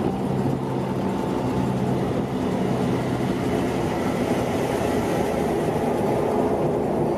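Diesel semi-trailer truck running on a highway: a steady low engine drone over road and tyre noise.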